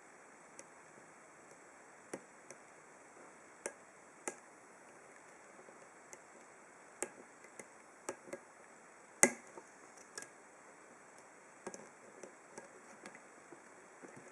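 Faint, irregular metallic clicks of a deep hook pick and tension bar working the serrated pins inside a Master Lock No. 19 padlock, with one sharper click about nine seconds in.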